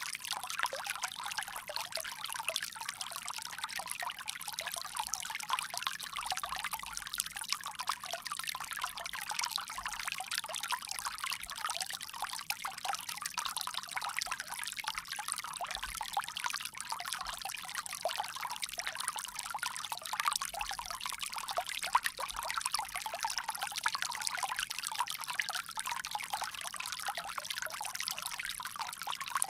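Water pouring steadily from a bamboo spout, a continuous trickle without pauses.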